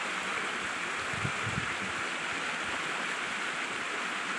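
Steady rushing of flowing water, like a stream, unbroken, with a few faint low thumps about a second and a half in.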